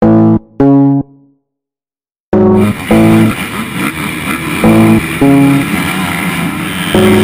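Two loud electric-guitar chord hits, then about a second of silence. From a little over two seconds in, the steady din of a pack of motocross bike engines at the start comes in, with the guitar chords going on over it.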